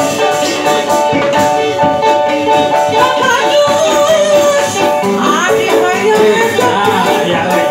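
Loud kuda renggong accompaniment music: a sustained organ melody over shaker-like percussion.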